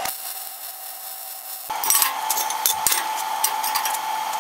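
Scattered sharp clicks and clinks of steel parts and tools being handled on a steel tubing frame, over a steady high hum. The clicks start and the sound gets louder about two seconds in.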